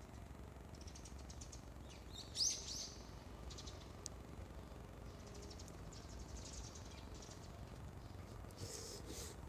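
Small birds chirping: scattered short bursts of high twittering, the loudest about two and a half seconds in, over a faint low rumble.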